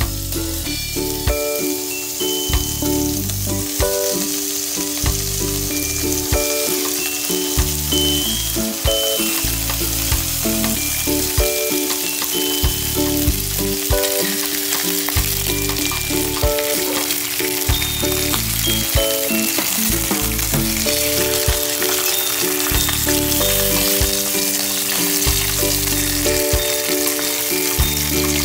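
Slices of pork belly sizzling steadily as they pan-fry in hot oil, under light background music with a repeating melody.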